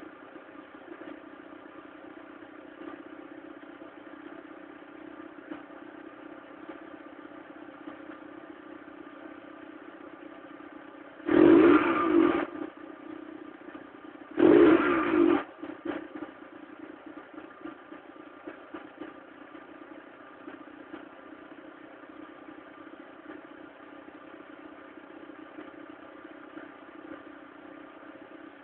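Mk3 1.4-litre single-point-injection engine idling steadily, revved briefly twice about a second apart in the middle, then settling back to idle.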